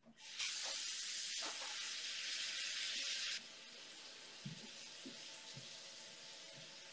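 A loud, even hiss for about three seconds that then drops to a softer steady hiss, with a few faint low knocks.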